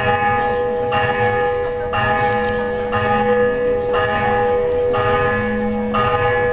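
A large bell tolling about once a second, each stroke ringing on into the next.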